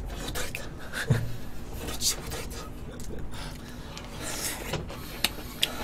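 Eating at a table: metal chopsticks clicking on bowls and plates, with short bouts of chewing and slurping.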